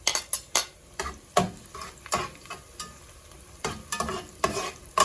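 A utensil scraping and knocking against a pan, irregular knocks about twice a second, as garlic and onion are stirred and sautéed, with a sizzle of frying underneath.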